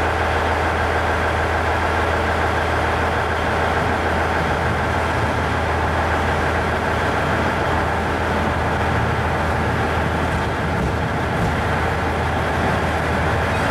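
IGR Iwate Galaxy Railway electric train standing at a station platform: a steady, unchanging low hum from its onboard equipment, heard under the general noise of the platform.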